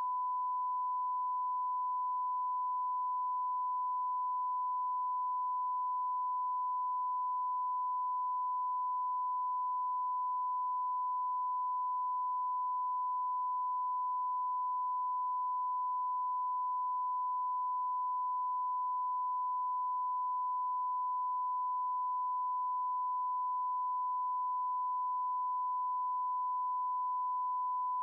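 Steady 1 kHz line-up tone, the single pure reference tone that goes with SMPTE colour bars at the head of a broadcast tape for setting audio levels.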